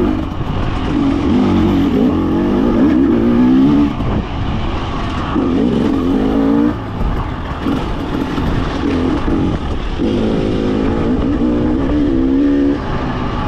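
2024 Husqvarna TE300 two-stroke dirt bike engine revving on and off the throttle while being ridden. Its pitch rises and falls over and over, with a few brief drops as the throttle is closed.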